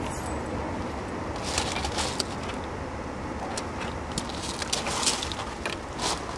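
Scattered light clicks and rustles of hand work as an oil can with a long spout is worked around a steam locomotive's rods and a rag is handled, over steady background noise.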